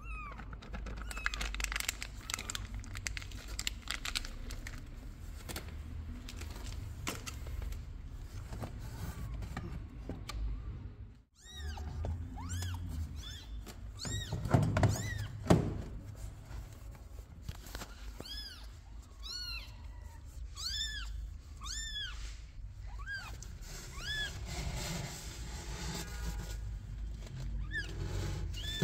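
Newborn kittens mewing: many short, high, rising-and-falling cries, mostly in the second half, with a couple of louder thumps about halfway through. A steady low hum runs underneath.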